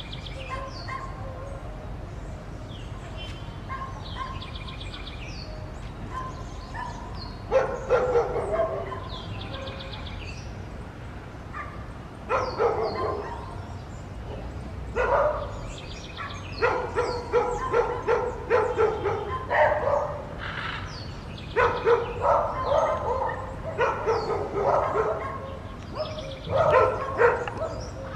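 Dogs barking in repeated bouts, beginning about seven seconds in and carrying on to the end. Birds chirp faintly before the barking starts.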